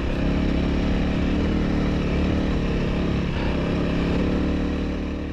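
Honda CRF300L dual-sport motorcycle's single-cylinder engine running at a steady pace while riding off-road, starting to fade out at the very end.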